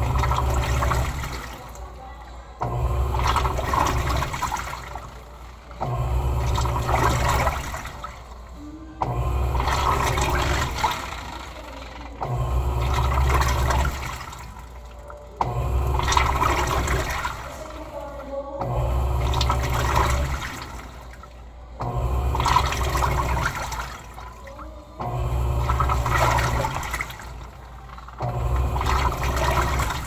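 Electrolux Turbo Economia LTE06 top-loading washing machine agitating: its motor drives the wash action in regular strokes of about two seconds, each followed by a short pause, roughly every three seconds, with water and clothes sloshing in the tub.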